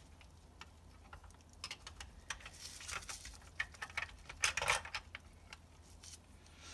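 Hard plastic LEGO parts clicking and knocking while being handled, with bubble wrap rustling and crinkling in two short spells, about midway and again a little later. The clicks are irregular, several a second.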